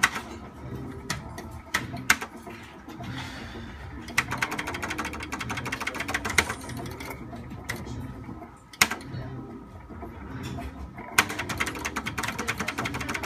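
Merkur slot machine sound effects during free games: sharp clicks as spins start and reels stop, and two runs of rapid ticking while a win is tallied, the second near the end.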